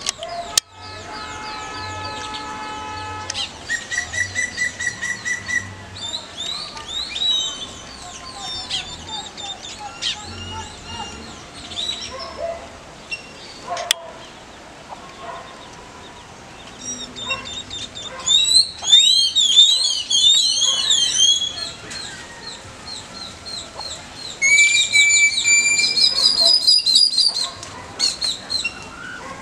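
Songbirds chirping and singing, with many short whistled and sweeping notes; two loud bursts of rapid, busy song come past the middle of the stretch and again a few seconds later.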